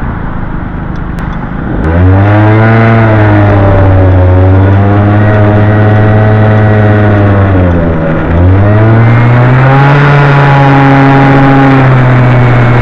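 Honda Gyro Canopy scooter's engine breathing through a Moto Repair Galuz II eco muffler, quieter at first, then accelerating hard about two seconds in with a rising note that settles into a steady high drone. It eases off briefly near eight seconds in, then picks up and holds steady again.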